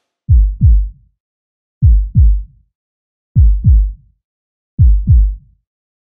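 Deep, heartbeat-like double thumps in the soundtrack, a lub-dub pair about a second and a half apart, four times over. Each thump drops in pitch, and the gaps between them are silent.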